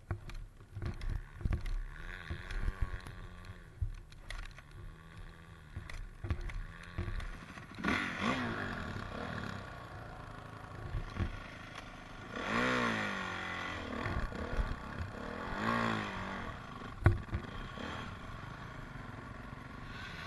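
Honda CRF four-stroke single-cylinder dirt bike engine running, revved up and down in several blips. Clattering knocks throughout, with one sharp knock late on.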